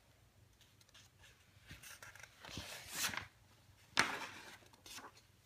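Pages of a picture book rustling as they are handled and turned, with a sharper papery swish about four seconds in, the loudest of them.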